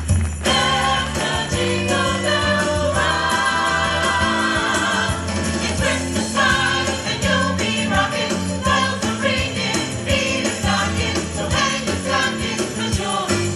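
Christmas music with jingle bells ringing and a choir singing.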